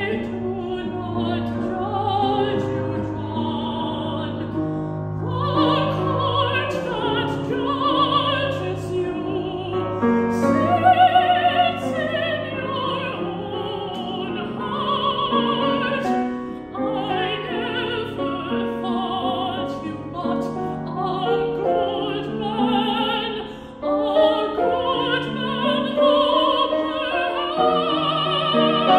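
Mezzo-soprano singing an opera aria with vibrato, accompanied by a grand piano.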